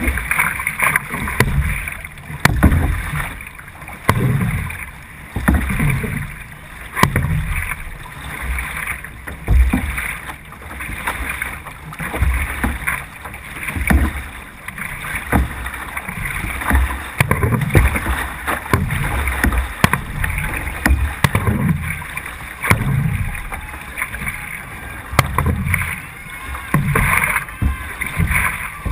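C1 sprint canoe being paddled hard, heard close up from the boat: a rhythmic surge of water with each paddle stroke, about one stroke a second, over a steady rush of water past the hull.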